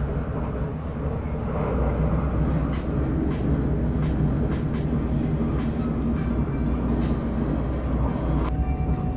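Cabin of a KLIA Ekspres electric airport train running at about 130 km/h: a steady low rumble of wheels on rails with faint ticks. Near the end there is a click and a thin steady tone comes in.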